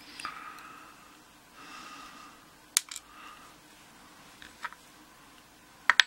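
Soft handling of a brass pin-tumbler lock cylinder, with three sharp small clicks of metal lock parts, the loudest near the end. The plug is being turned with a follower, and the pins are loose and starting to slip out.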